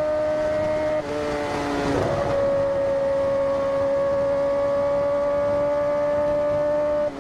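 Kawasaki Ninja ZX-10R's inline-four engine running steadily at highway speed, with road and wind noise. The level dips briefly about a second in and again near the end, and the engine note shifts slightly before holding steady.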